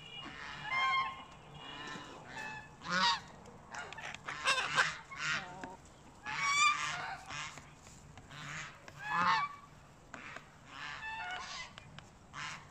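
Domestic geese honking: about a dozen short calls with brief pauses between them.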